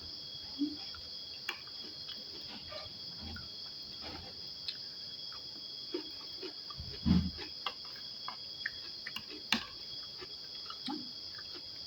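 Crickets chirping steadily in the background, a continuous high-pitched trill, over scattered small clicks and soft knocks of eating and utensils, with one louder low knock about seven seconds in.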